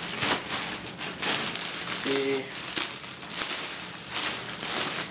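Clear plastic packaging bag crinkling and rustling irregularly as hands work it open around a tactical vest.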